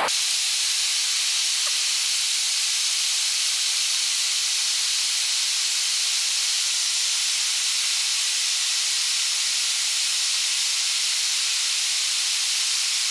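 Steady, even hiss of the Airbus A320 flight deck in descent: airflow and air-conditioning noise, mostly high with almost no low rumble.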